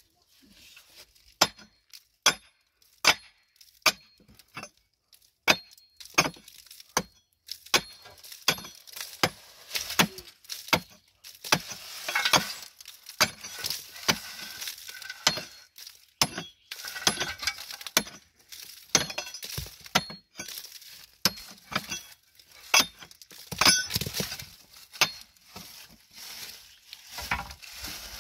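Pickaxe striking the rock of a cave overhang, a steady run of sharp clinking blows about once a second, with gritty rattling between some of the blows.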